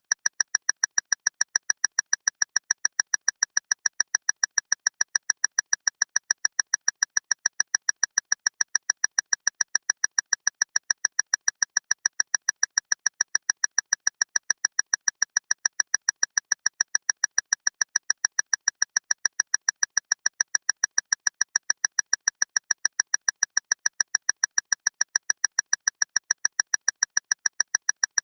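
Clock ticking loudly and mechanically, rapid even ticks at about four a second, each one sharp and bright.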